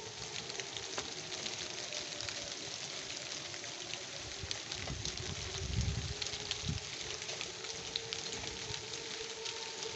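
A tornado warning siren sounding one long steady wail, wavering slightly in pitch and starting to slide lower at the end, under the steady hiss of falling rain.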